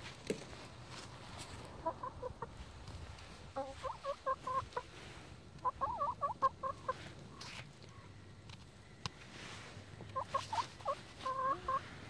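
Hens clucking as they forage, in about four short runs of quick, pitched clucks with pauses between them.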